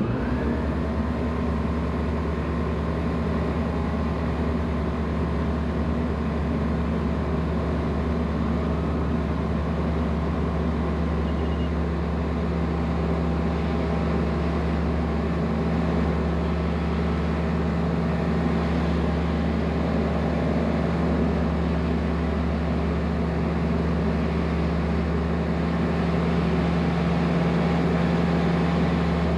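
The APM20 Lionceau's Rotax 912 engine and propeller running at a steady, even drone, growing slightly louder near the end.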